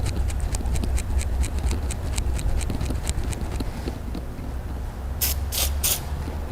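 A quick run of light ticks, about seven a second, over a steady low hum, then three short sprays of pine-sap solvent from a spray can about five seconds in.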